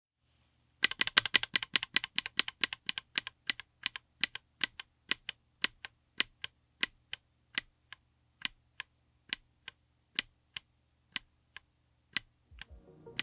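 Mechanical keyboard fitted with Keebz N Cables Ice Kachang linear switches (FR4 plate, DZ60 PCB, Tofu60 aluminium case) being typed on. A quick run of keystrokes starts about a second in, then thins out to single keypresses a few times a second toward the end.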